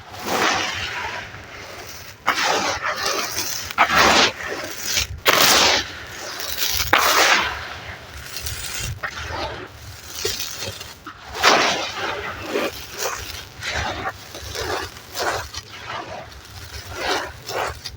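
Gritty red sand and charcoal crumbling in foamy water: a run of irregular wet, crunchy crumbles, some short and some drawn out.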